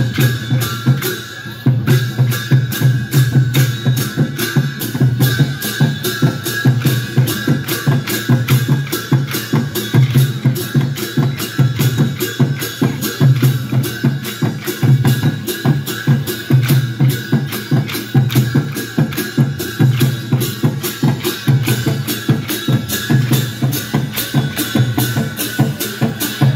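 Traditional Newari dance music: drums beating a fast, steady rhythm of sharp strikes with deep beats underneath and a steady high tone held throughout.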